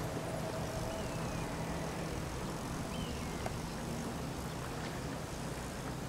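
Steady outdoor background rumble, with a couple of faint high chirps falling in pitch about one and three seconds in.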